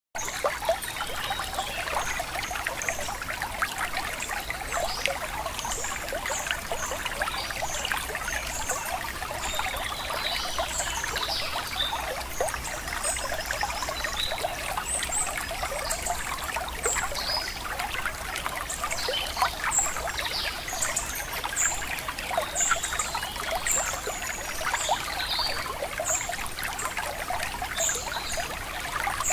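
Shallow river water trickling and splashing steadily, with many short high notes scattered over it.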